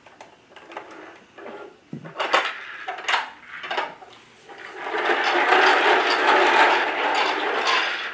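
Hard plastic toy trucks clicking and knocking against each other and a hardwood floor, then a steady noisy sound from the yellow toy tow truck for about three and a half seconds, near the end.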